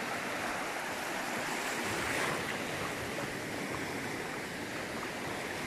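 Small surf breaking and washing up a shallow sandy shore in a steady, even wash that swells briefly about two seconds in.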